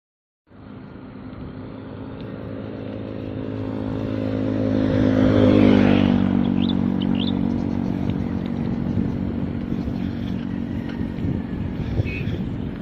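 A motor vehicle's engine approaches, growing steadily louder, and passes by about halfway through; its pitch drops as it moves away, leaving a steady road noise.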